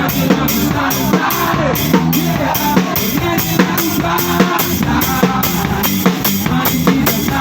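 Background pop song with a steady drum-kit beat and a melodic line over it.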